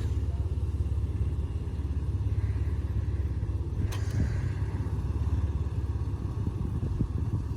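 Off-road 4x4 engine idling with a steady low rumble, with a couple of faint clicks about four seconds in.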